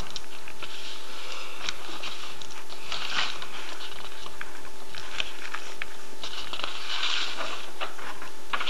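Steady hiss with a faint steady hum, and scattered light ticks and scratches.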